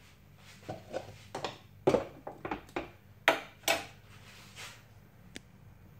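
A metal spoon and a pot lid clattering as the lid is set on a coated cooking pot and the spoon laid on it: a run of short knocks and scrapes, loudest about two and three and a half seconds in, then a single sharp tick near the end.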